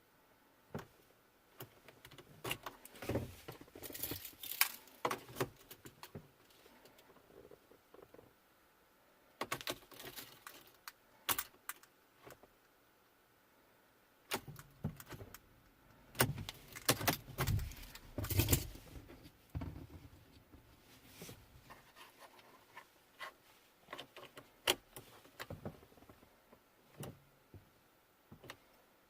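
Keys jangling and clicking in bursts with short pauses, as the key is worked at the ignition of a 2012 Mercedes GLK that won't start, a fault the owner puts down to the steering lock.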